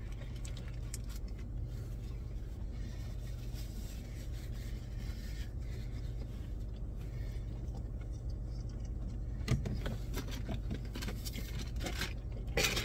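Steady low hum of a car idling, heard from inside the cabin, with faint chewing and paper-wrapper rustles from eating a sandwich. There are a couple of brief louder handling noises near the end.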